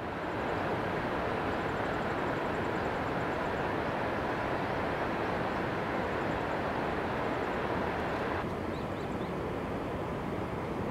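Steady rushing outdoor ambience, an even roar with faint high chirps over it now and then; the hiss dulls a little about eight seconds in.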